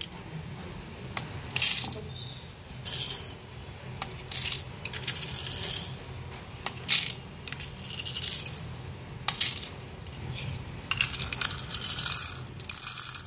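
Small plastic beads clattering against a plastic scoop, bowl and bead-organiser compartments as they are scooped and tipped in, in short spills of clicks every second or two.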